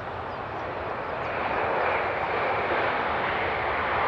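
Jet airliner engine noise: a steady rushing that grows gradually louder over the first couple of seconds, then holds.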